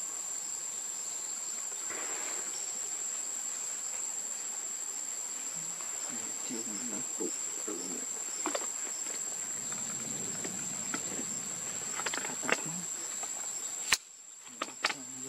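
Steady high-pitched insect drone, like crickets or cicadas. Near the end it is broken by a sharp click, after which the drone briefly drops out.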